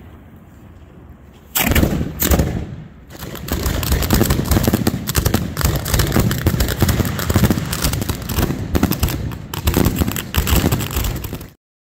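Fireworks fired at close range: a few separate bangs, then from about three seconds in a dense, rapid barrage of shell launches and bursts that cuts off suddenly near the end.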